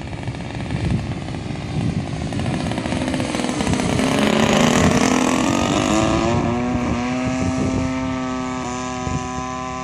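Engine and propeller of a radio-controlled Sbach aerobatic model plane in flight. It grows louder to a peak about halfway through as the plane passes close, its pitch dipping there, then settles into a steady drone that fades as the plane flies off.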